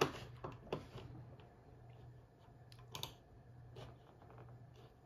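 A handful of faint, sharp clicks from a MacBook being operated, spaced irregularly, the first the loudest, over a low steady hum.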